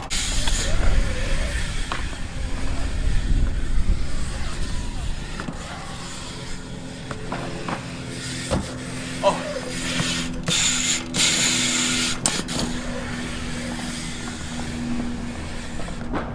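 BMX bike rolling over concrete skatepark ramps, its rear hub ratcheting as the rider coasts, with a few sharp knocks and a stretch of tyre hiss about two-thirds of the way in.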